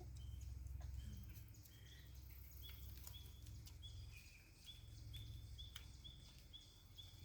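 Near silence outdoors: a low wind rumble, with a small bird's short high chirps repeating about twice a second from a few seconds in, and a few faint clicks.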